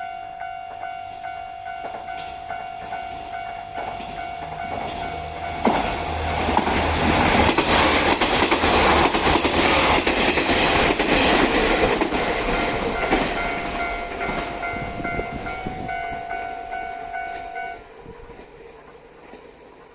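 Japanese railway level-crossing bell ringing its repeated 'kan-kan-kan' warning, about two strikes a second, while a train passes over the crossing with loud wheel and rail clatter for about ten seconds. The train noise fades, and the bell stops near the end.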